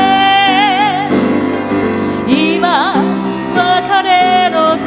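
A woman singing three long held phrases with wide vibrato over piano accompaniment: a live ballad performance of a Japanese choral song.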